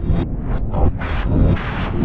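Loud, heavily distorted, bass-heavy noise in irregular bursts, the sound of an audio clip run through a harsh distortion effect.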